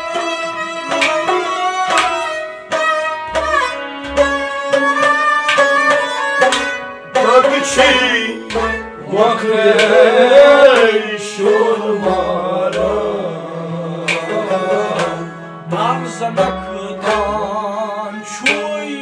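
Kashmiri Sufi music: an instrumental melody of quick, sharply struck notes over low drum beats, then singing with a wavering, ornamented line joins about seven seconds in, the instruments and drum carrying on beneath it.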